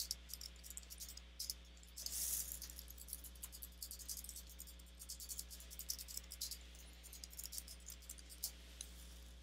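Faint typing on a computer keyboard: a quick, irregular run of soft key clicks.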